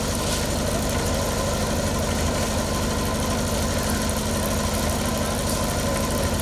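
Engine-driven concrete mixer running steadily, with an even, rapid pulsing.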